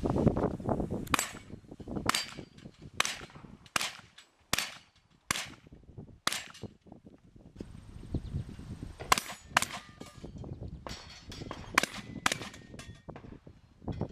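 Shotgun fired repeatedly through a course of fire: about a dozen sharp shots, roughly one a second at first, then a pause of about three seconds and a quicker string near the end.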